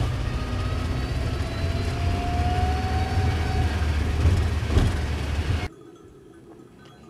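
Car engine and road noise heard from inside the cabin, a loud steady rumble, with a rising whine in the middle and a knock a little before the end. It cuts off suddenly near the end to a much quieter outdoor background.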